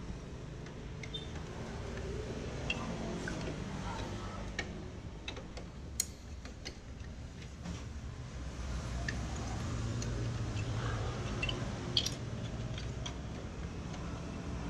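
Scattered light clicks and taps of plastic and metal parts being handled on a Canon imageRUNNER Advance photocopier, over a low steady background rumble.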